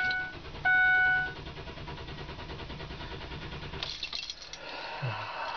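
A dashboard warning chime sounds twice, then the Ford Explorer's starter cranks the engine over steadily without it catching. This is the intermittent no-start that a new crankshaft position sensor has not cured.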